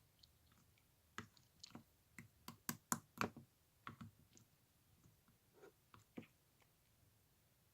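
A quick, irregular series of small, faint clicks and taps, bunched together in the first half with a few more after a pause.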